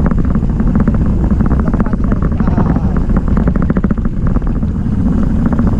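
Wind rushing over a handlebar-mounted camera and a fast, uneven rattle from a mountain bike riding over a rough road surface, with a heavy low rumble throughout.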